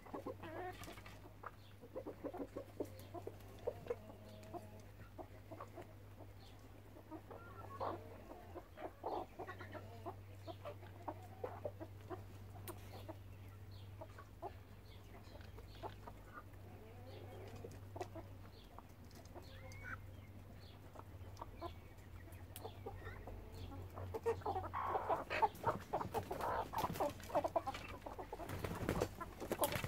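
Domestic chickens, a mixed flock of hens with a rooster, clucking and calling in short scattered bursts while they forage. The calls get busier and louder in the last few seconds.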